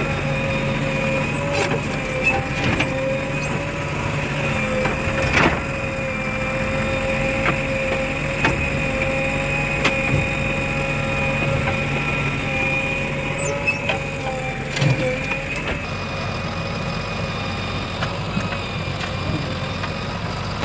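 Diesel engine of heavy earthmoving machinery running steadily with a held whine, with scattered knocks and cracks through it.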